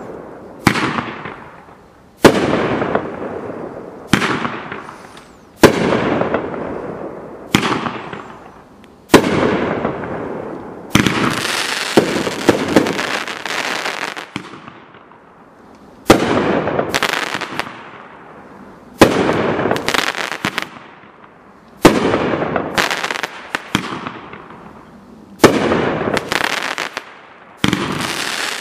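Mad Ox 5042 Velociraptor consumer firework going off: about a dozen sharp bangs, one to three seconds apart, each trailing off in crackling that fades away. In some stretches the crackling runs thicker.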